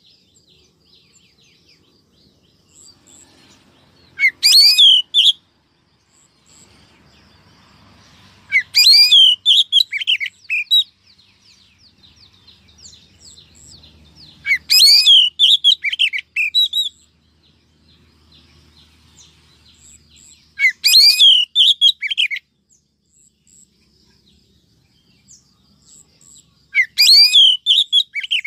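Female oriental magpie-robin calling, a recorded lure call: short bursts of quick whistled and chattering notes, about every six seconds, five times.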